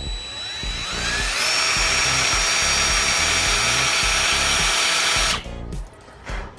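Power drill spinning up with a rising whine, then boring a guide hole through a motorcycle brake lever with a steady high whine, cutting off suddenly about five seconds in. Background music with a steady beat runs underneath.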